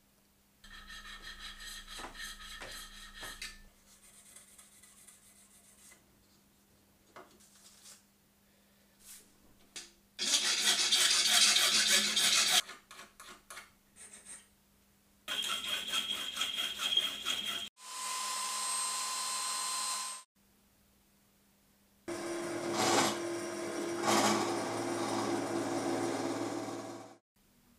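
A string of short workshop clips, each cut off abruptly: a needle file rasping in quick strokes over a small threaded steel stud clamped in a vise, among other bursts of tool noise. Near the end a drill press runs steadily as it drills into the part.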